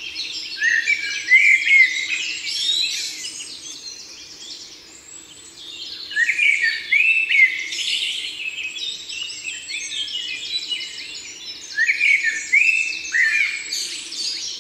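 Several songbirds singing at once: a dense run of quick chirps, rising notes and trills, busiest about a second in, again from about six to eight seconds, and near the end.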